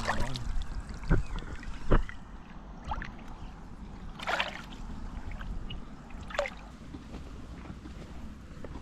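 Two sharp knocks, then two short splashes of water about four and six seconds in, over a faint steady trickle of water.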